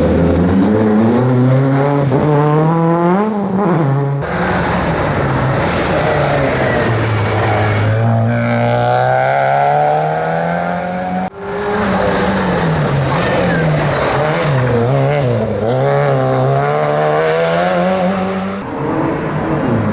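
Rally car engines revving hard. The pitch climbs under acceleration and drops at gear changes and lifts, in several short clips that cut off abruptly from one to the next.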